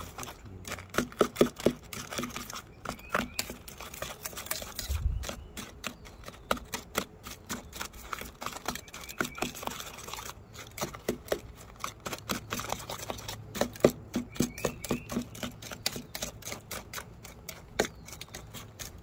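Knife blade clicking and scraping against a stainless steel dog bowl as chunks of canned dog-food loaf are chopped and stirred into kibble: quick, irregular metallic clicks, several a second.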